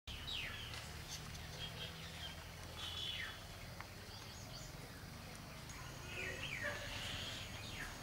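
Birds chirping: short falling chirps that come several times, clustered near the start, around three seconds in and again a little after six seconds, over a steady low hum.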